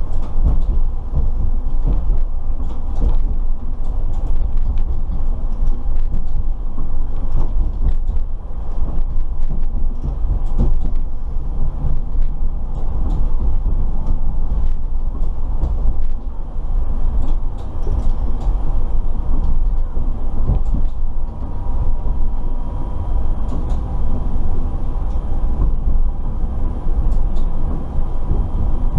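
Running noise inside the cab of a U 52600 Citadis Dualis tram-train as it rolls over points and rail joints: a steady low rumble with frequent short clicks from the wheels. A steady whine joins about two-thirds of the way through.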